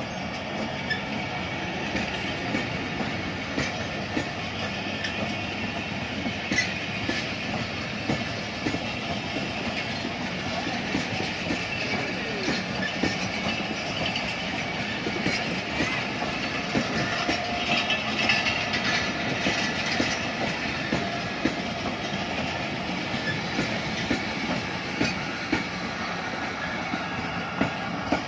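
Pakistan Railways express train rolling past as it pulls out, its wheels clattering over rail joints in a continuous clickety-clack over a steady rumble.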